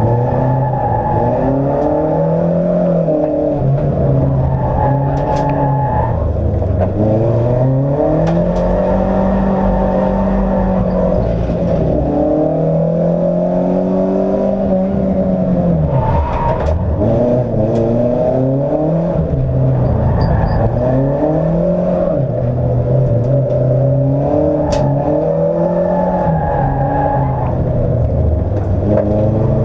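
Opel Corsa's engine heard from inside the cabin, driven hard round a track: its note climbs and falls in pitch over and over, a few seconds apart, as it is revved up and let back down, with a few brief sharp knocks.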